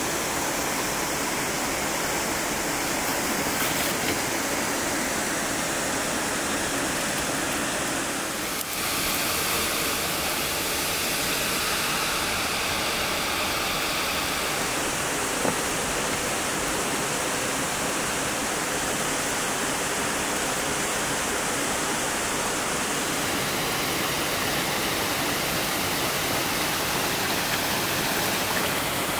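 Waterfall and stream water rushing steadily, its tone shifting a few times.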